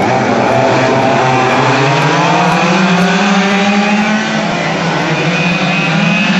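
A pack of quarter-scale R/C oval race cars running flat out. Their small two-stroke engines make a shrill, overlapping buzz, several pitches rising and falling as the cars come through the turn and down the straight.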